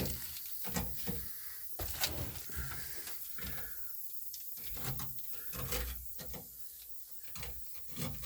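Irregular clicks, knocks and rattles of a camera being handled close to the microphone while it is tried on a mount.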